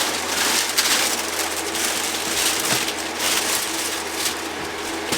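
Rustling and crinkling of van window shades being handled and fitted, in quick irregular surges, over the steady hum of an electric fan.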